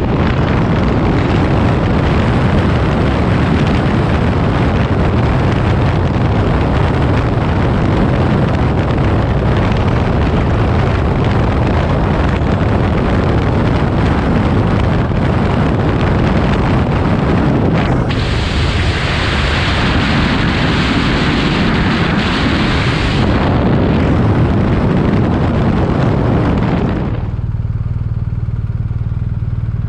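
Motorcycle riding at highway speed, heard from a bike-mounted camera: a loud steady rush of wind and road noise with the engine running underneath. A brighter hiss rises over it for about five seconds past the middle. Near the end the noise drops to a quieter steady low hum.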